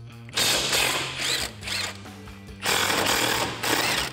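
Milwaukee Fuel cordless impact gun hammering out 15mm bolts on a truck's bumper support plate: two bursts of about a second and a half each, the motor whine rising and falling within each burst.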